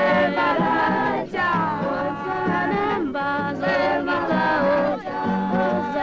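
Zulu wedding music: several voices singing together in short phrases over a steady low note, with brief breaks between phrases about every two seconds.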